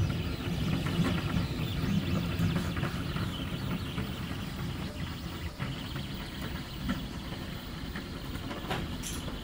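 Deltamaker delta 3D printer running a print: a low, uneven mechanical whirr from its stepper motors and the hum of the print-head cooling fan. It eases off slightly after about four seconds.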